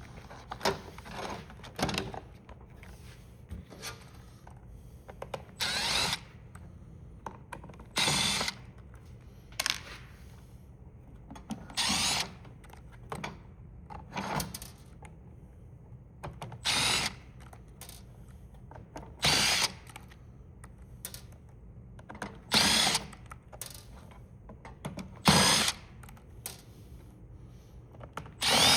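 Power drill or driver running in about a dozen short bursts, each under a second and a couple of seconds apart, as during a teardown taking a calculator apart.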